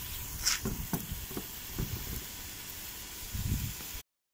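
Meat sizzling in a cast-iron pot over a wood fire: a steady hiss with a few soft low thumps and pops. The sound cuts off abruptly near the end.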